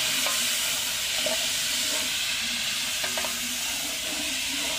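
Tomatoes, garlic and onion sizzling in ghee in a large aluminium pot, a steady hiss, while a spoon stirs and knocks against the pot a few times.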